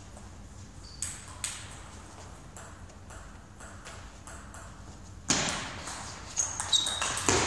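Table tennis ball bouncing twice about a second in, then a point starting near the end: sharp pings of the celluloid ball off bats and table, with brief high shoe squeaks on the sports floor over a sudden rise of hall noise.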